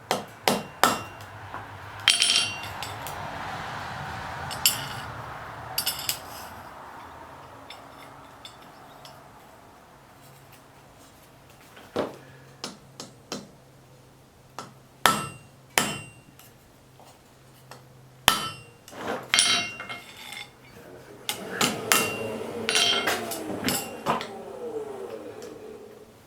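Hand hammer striking hot steel on an anvil while forging an arrowhead: irregular blows in scattered groups with pauses between, several with a bright ring, and a busier run of strikes and scraping near the end.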